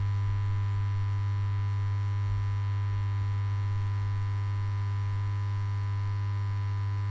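Steady electrical hum with a strong deep tone and fainter higher overtones, the neon-sign buzz of a logo sound effect.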